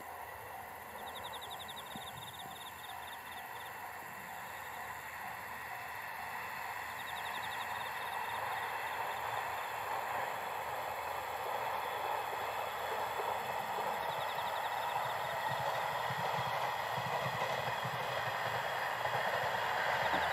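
Resort Minori diesel railcar train (converted KiHa 48s) running past on the line, growing steadily louder as it approaches, with a low engine-and-wheel rumble building over the last few seconds. Insects trill faintly in short bursts every few seconds.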